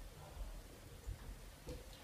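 Quiet room tone with a few faint, soft low thumps and a couple of light clicks.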